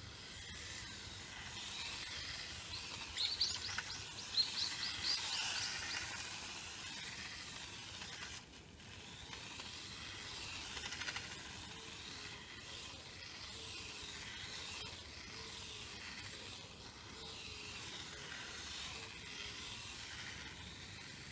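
Outdoor background noise, a steady hiss, with a short run of high chirps about three to six seconds in.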